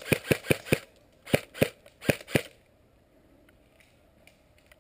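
Airsoft gun firing close by: a quick string of about five shots, then two more pairs of shots, after which it stops.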